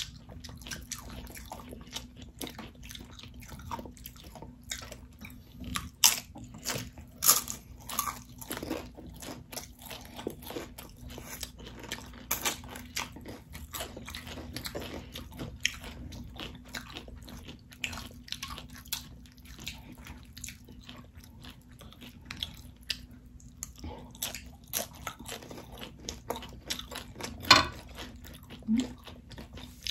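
Crisp tortilla chips of loaded nachos being bitten and chewed close to the microphone: sharp, irregular crunches scattered throughout, with quieter chewing between, over a faint steady hum.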